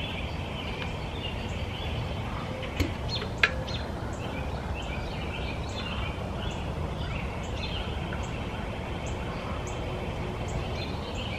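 Songbirds chirping outdoors over a steady low background rumble, one bird repeating a short high call about every half second. Two sharp clicks about three seconds in as the insulated water bottle is handled, then hot water poured from the bottle into a small porcelain teapot.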